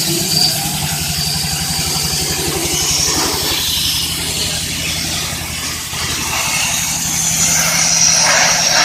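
Air compressor running steadily with a fast, even low pulsing, and a hiss of air over it that swells a couple of times.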